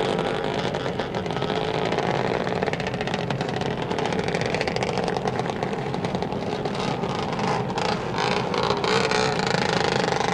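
Sound effect of a car engine running and accelerating away, a steady motor sound as at a green light.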